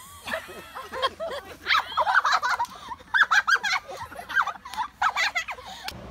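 A person laughing hard in a high-pitched cackle, breaking off and starting again several times.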